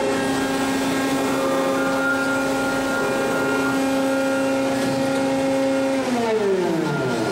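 Electric motor of a forklift battery-changing machine whining at a steady pitch, then winding down with a falling pitch about six seconds in as the machine stops.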